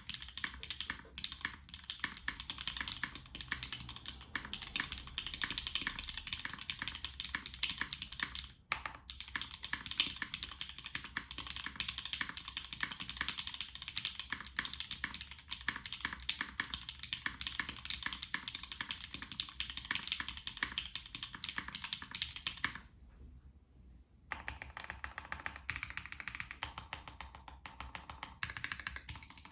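Fast, continuous typing on a zekk.works Ogre mechanical keyboard with Gateron Black Ink linear switches lubed with Krytox 205g0, a UHMWPE plate, O-ring mount and GMK keycaps. The keystrokes run without let-up, with a pause of about a second and a half roughly three quarters of the way through.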